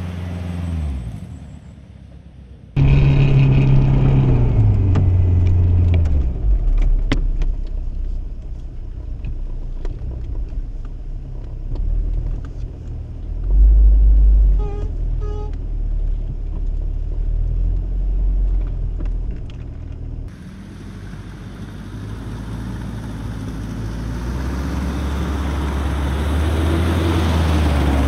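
1997 Jeep Cherokee XJ's 2.5 turbo diesel engine working off road. It fades away at first. After a sudden cut it is heard from inside the cab, running under load with its pitch rising and falling among frequent knocks and rattles. After another cut it grows steadily louder as the Jeep approaches.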